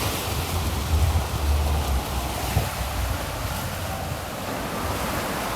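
Wind blowing across the microphone: a low rumble that comes and goes in gusts over a steady rushing noise.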